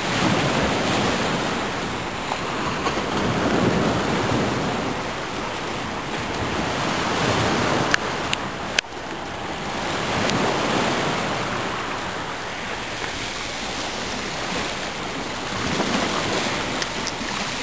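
Sea washing on a shingle shore in slow swells, with wind buffeting the microphone. Two sharp clicks about halfway through.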